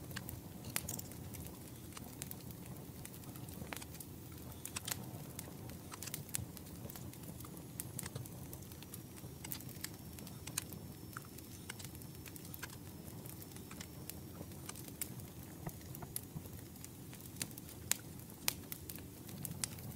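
Knife scoring the skin of a raw pork belly on a wooden cutting board: scattered sharp ticks and clicks, over a steady low hum.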